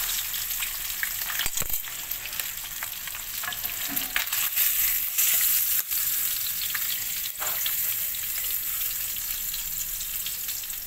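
Milkfish frying in hot oil in a nonstick wok: a steady high sizzle, with a few sharp clicks of the tongs and spatula against the pan as the fish is turned and lifted.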